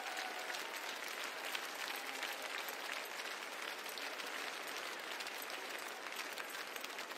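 Spectators applauding steadily, the dense clapping of many hands.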